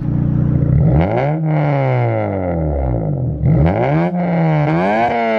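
The exhaust of a Honda Civic Si's K24 four-cylinder engine as it is revved in place, heard close to the tailpipe. The pitch climbs quickly and then sinks slowly back, about three times.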